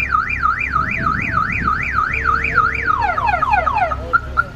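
Car alarm siren going off on a Chevrolet Camaro, cycling through its tones. A fast up-and-down warble gives way about three seconds in to quick falling sweeps, then a string of short beeps near the end.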